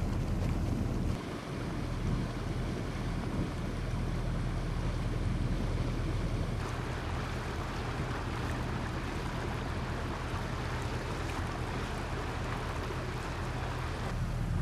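Boat engine running steadily underway, a low hum under the rush of water and wind on the microphone. There is a brief drop about a second in.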